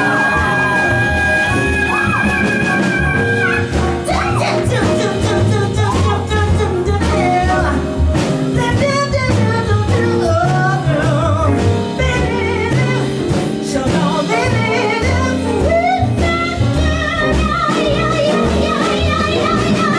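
Band playing a slow blues live, a lead voice or horn holding one long high note for the first few seconds, then running into wavering, ornamented phrases over a walking bass.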